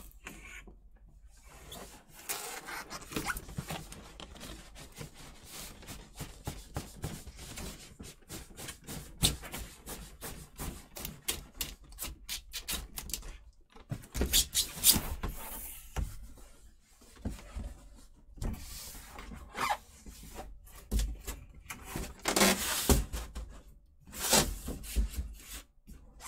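Large cardboard shipping boxes being handled and slid apart: irregular rubbing and scraping of cardboard on cardboard, with rustles and light knocks, louder spells of scraping about halfway through and near the end.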